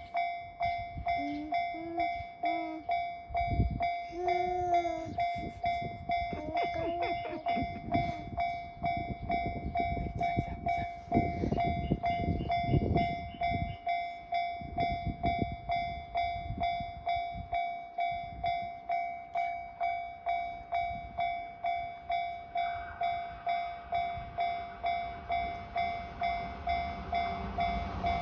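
Japanese railway level-crossing warning bell ringing in an even, repeating 'kan kan' rhythm. A rumble builds from about 22 seconds in as a train approaches.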